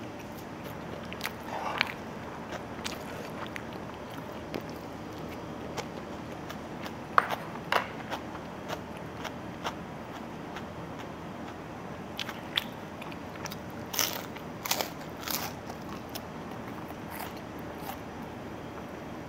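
A person chewing and eating a last mouthful of fried rice, with scattered sharp clicks and small mouth and utensil noises over a steady low background hum. The clicks come in small clusters, about a third of the way in and again about three quarters of the way in.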